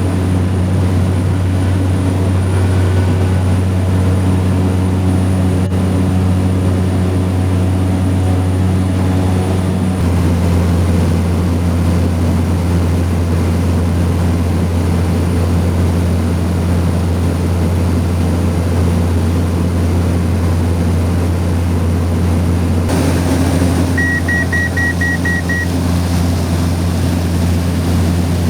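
Single turboprop engine of a Cessna 208B Grand Caravan (Pratt & Whitney PT6A) running at a steady drone in flight, its low hum shifting a little in pitch about ten seconds in. About 24 s in, a short run of quick electronic beeps.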